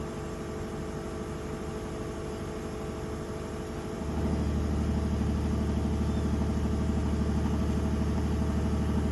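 VIAIR 450P portable air compressor running steadily as it inflates a trailer tire. About four seconds in, the Ford F-150 PowerBoost hybrid's gasoline engine starts and settles into a steady idle, kicking on to recharge the battery the compressor is drawing from.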